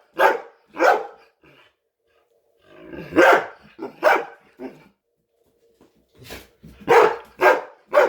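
Chocolate Labrador retriever barking for food: short, loud single barks in three spells with brief pauses between, two near the start, a cluster midway and a faster run near the end.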